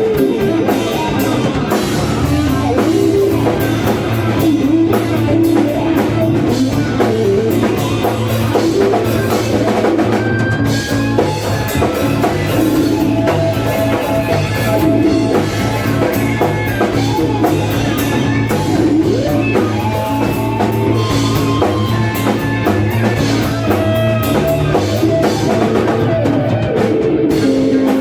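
Electric guitar played through effects pedals in a rock piece with a drum kit, the guitar holding melody notes over a steady beat.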